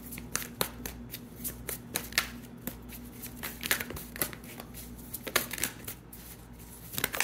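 Tarot deck being shuffled by hand: a quick, irregular patter of card clicks, thinning out near the end.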